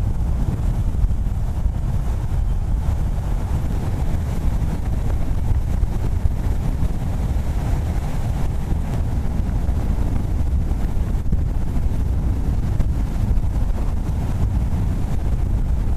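Hurricane-force wind buffeting the microphone: a loud, steady, low rumble of wind noise.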